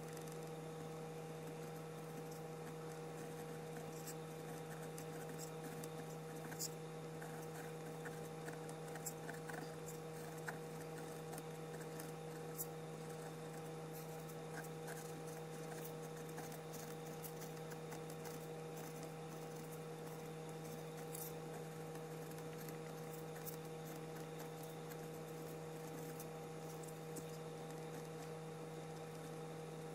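A steady, faint electrical hum, with faint scattered scratches and ticks of a fountain pen nib dragging across paper as it writes.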